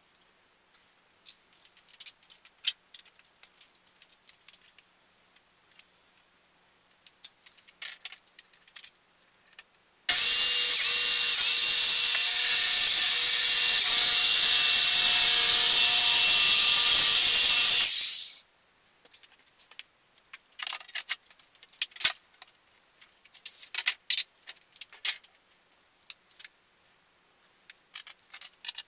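Circular saw cutting through a plywood sheet along a clamped aluminium straightedge guide. It runs steadily for about eight seconds from about ten seconds in, then cuts off sharply. Before and after it come scattered light clicks and knocks.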